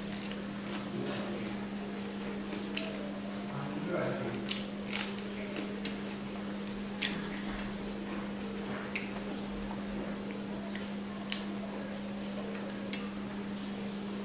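Eating by hand: scattered sharp clicks and smacks from chewing and from fingers mixing rice on a steel plate, over a steady low hum.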